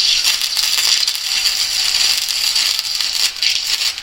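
MIG welder laying a short weld bead: a steady, dense electric-arc crackle and sizzle that cuts off abruptly when the trigger is released.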